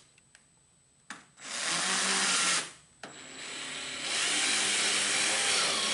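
Cordless drill-driver driving a screw through a nylon strap hinge into a plastic cooler: a click, a motor run of about a second, a brief stop, then a longer run that builds up and keeps going.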